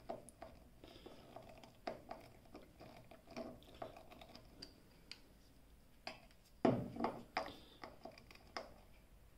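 Faint clicks and scrapes of a Phillips screwdriver turning the screws on a 15-amp 220-volt plug, with a louder knock about two-thirds of the way through.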